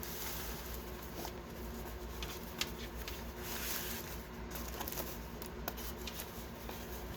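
A large diamond painting canvas being slowly unrolled by hand: soft, irregular rustling of the canvas, with scattered faint ticks.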